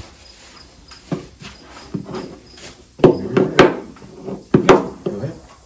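Three sharp cracks, about three, three and a half and four and three-quarter seconds in, with low voices after them.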